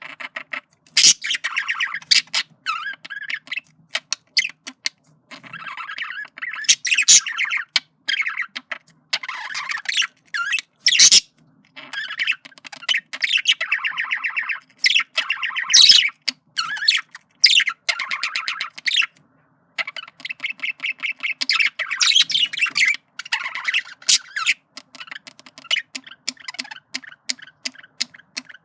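Male budgerigar warbling to a female in courtship: a fast, chattering stream of clicks, chirps and squawks in runs of a few seconds, with brief pauses between them.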